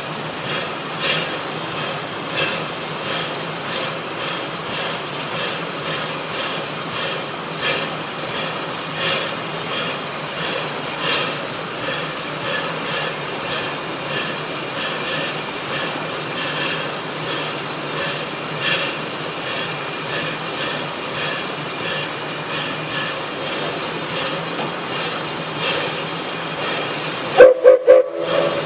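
Denver & Rio Grande Western C-18 class 2-8-0 steam locomotive No. 315 standing with a steady hiss of steam and scattered soft ticks. Near the end come a few short, loud blasts of its steam whistle.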